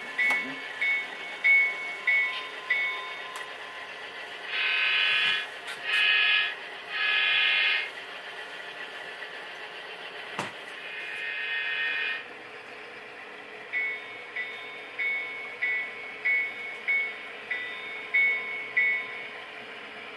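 Sound decoder of an HO-scale Santa Fe diesel locomotive model playing through its small speaker. The bell rings in regular strokes, about two a second. About four seconds in come three loud horn blasts and then a longer, fainter one, and the bell rings again near the end.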